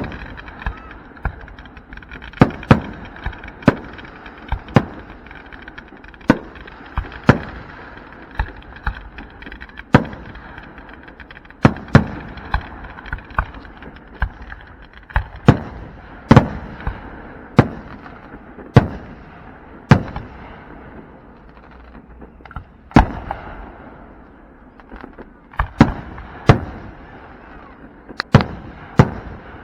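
Aerial firework shells bursting in quick succession, sharp booms about once a second, each trailing off in a short echo, over a steady hiss that thins out about halfway through.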